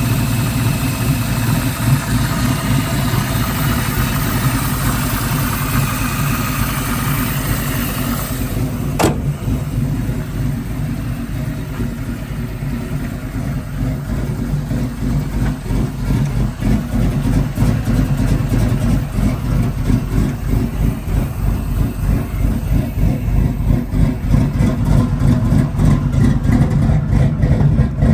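Fuel-injected 347 cubic-inch V8 idling steadily, with a lumpy pulsing beat that grows louder and more distinct in the second half. A single sharp click about nine seconds in.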